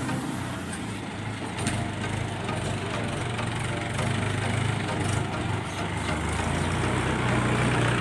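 Diesel tractor engine running steadily as it pulls a trolley loaded with mud, growing louder as the tractor comes closer.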